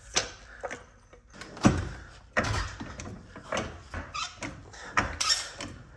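A car jack being set under the rear of a car and raised: a run of irregular metal knocks and clanks with some scraping, the loudest knock a little under two seconds in.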